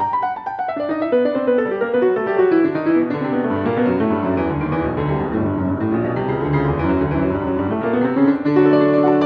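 Solo piano playing: a fast run of notes that falls in pitch and then climbs back up, settling into held chords near the end.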